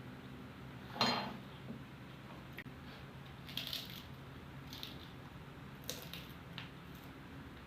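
Light clinks and rustles of tableware and food being handled while eating: a short mouth sound about a second in, then several soft clicks, over a low steady hum.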